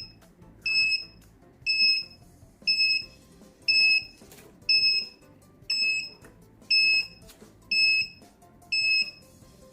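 Electronic alarm buzzer of a keypad door lock built on an STM32 NUCLEO-F411RE board, beeping a steady high tone about once a second, nine beeps in all. It is the 30-second lockout alarm set off by repeated wrong password entries.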